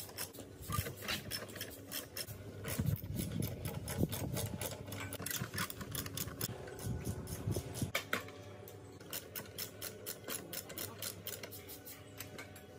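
Hand tools working on metal parts: a run of irregular clicks, taps and scraping strokes, busiest in the middle, over a faint steady hum.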